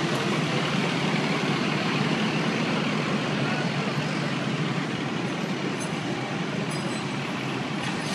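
Heavy emergency-service truck's diesel engine running at a standstill: a steady, even rumble.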